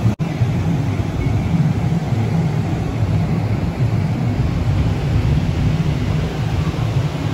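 Surf breaking on a sandy beach: a steady, loud wash of waves with a deep rumble, broken by a brief dropout just after the start.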